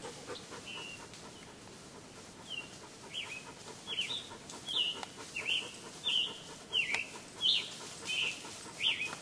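Male scarlet tanager singing: a run of short phrases, each a quick slur up or down, coming about two a second and starting about two and a half seconds in.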